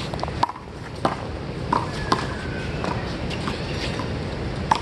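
Small rubber handball being hit by hand and bouncing off the concrete wall and court in a rally: about six sharp, irregularly spaced smacks. There is a short squeak of sneakers on the court about two seconds in.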